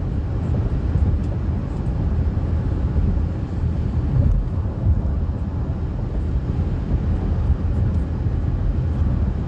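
Steady low rumble of a car cruising on a freeway, tyre and engine noise heard from inside the cabin.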